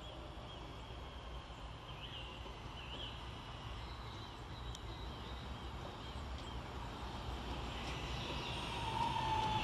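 Class 323 electric multiple unit approaching, its running noise faint at first and growing steadily louder, with a whine coming up in the last two seconds. Faint bird chirps sound in the first few seconds.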